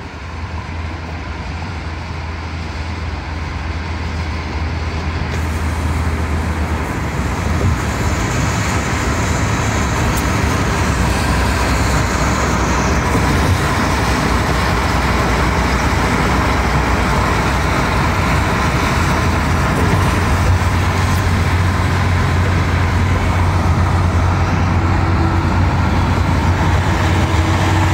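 Road noise heard inside a moving car: a steady low rumble of tyres and engine with a broad hiss over it, growing louder over the first ten seconds or so and then holding steady.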